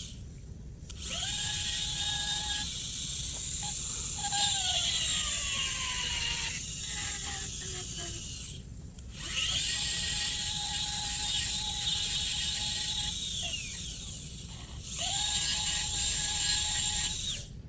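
Slow-speed dental handpiece spinning a fine amalgam-polishing disc, whining steadily in three long runs with short stops between. In the first run its pitch sags and falls for a few seconds as it is worked around the filling's groove.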